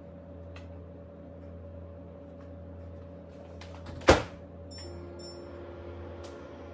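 A microwave oven door shuts with a single loud clunk, followed by a few quick high keypad beeps. The microwave then starts running with a steady hum.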